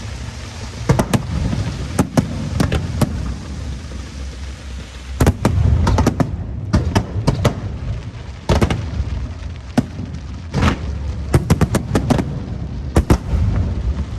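Aerial fireworks bursting: an irregular series of sharp bangs over a continuous low rumble, with a quick run of bangs near the end.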